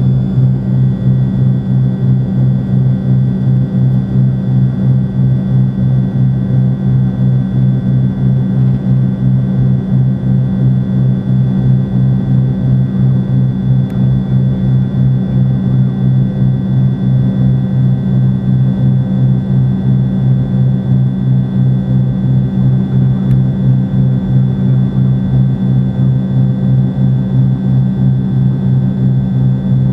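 Airplane engine noise heard inside the cabin: a loud, steady low drone that pulses evenly throughout.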